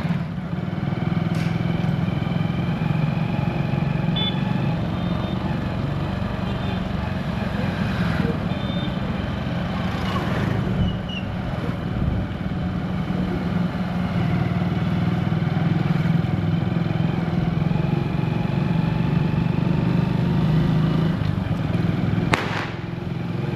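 Motorcycle engine running steadily under way, heard from on the moving bike. A single sharp click comes near the end.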